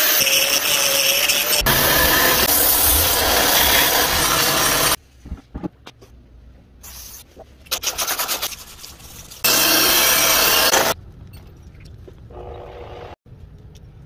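A power grinder runs loudly against the steel of an axe head, throwing sparks, for about five seconds. Then comes quieter hand sanding of the steel with an abrasive strip, in short scraping strokes, and about two-thirds of the way through there is another loud stretch of grinding for a second and a half before quieter rubbing resumes.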